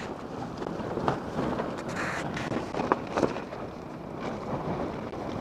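Gale-force mountain wind gusting and buffeting the microphone, rising and falling irregularly, with a few brief sharp snaps about a second and three seconds in.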